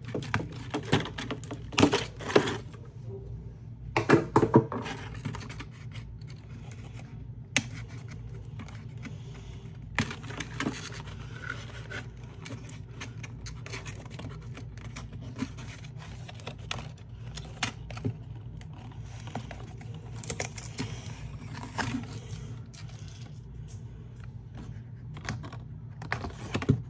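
Cardboard toy box being handled and opened by hand: irregular clicks, taps and scrapes of the card, loudest in a few clusters in the first five seconds, then sparser.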